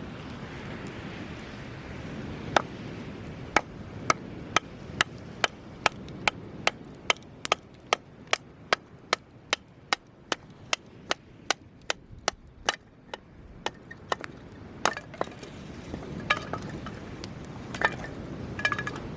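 Firewood being split by hand: a long, even run of sharp wooden chopping knocks, about two to three a second, starting a couple of seconds in and thinning out to a few scattered knocks near the end.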